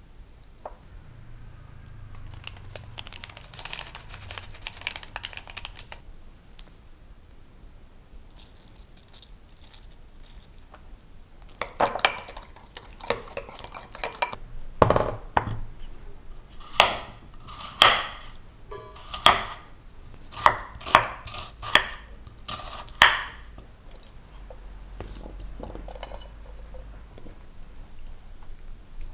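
A small spoon clinking and scraping against a glass mixing bowl while a thick chili-paste sauce is stirred: about a dozen sharp, ringing clinks, spaced irregularly through the middle of the stretch.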